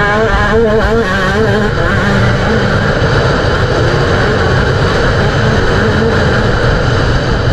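GasGas MC 125 two-stroke motocross engine under riding load: the pitch rises and falls with the throttle for the first couple of seconds, then holds at steady high revs.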